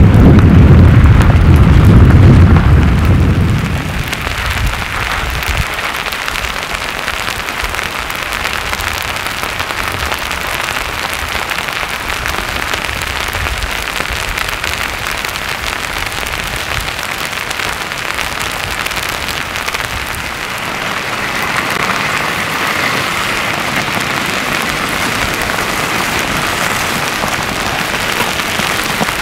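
Slabby pahoehoe lava flow front giving a steady crackling, scraping hiss as slabs of crust are dragged along the cooled older flow. A loud low rumble opens the sound and stops about four seconds in.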